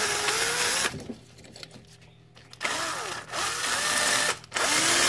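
Small 12-volt cordless drill spinning a cylinder wire brush against a battery cable terminal, scrubbing it clean. It runs in short bursts: it stops about a second in, starts again past halfway, pauses briefly and runs again near the end, its motor pitch wavering as the brush bites.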